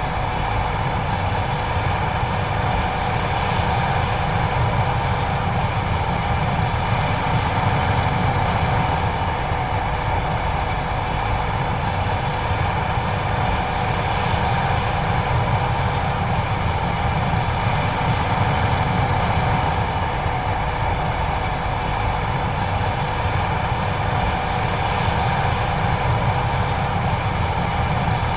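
John Deere 9570STS combine running steadily while harvesting corn: an even, unbroken machinery drone with a few constant whining tones over a low rumble.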